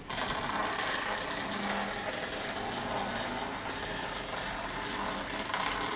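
HexBug robotic mouse toy running: its small battery motor whirring steadily as it scurries about inside a plastic basket, switching on abruptly.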